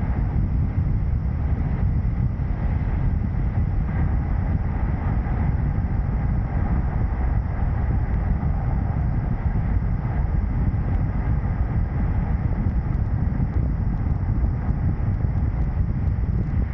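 Steady rumble of a moving vehicle, heavy in the low range, with wind buffeting the microphone.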